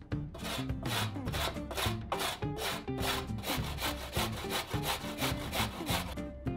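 Carrot being grated on a stainless-steel box grater: quick rhythmic scraping strokes, about three a second, with background music underneath.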